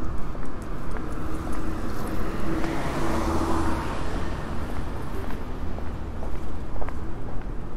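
A car passing by on a city street: engine hum and tyre noise swell to a peak about three seconds in and fade again.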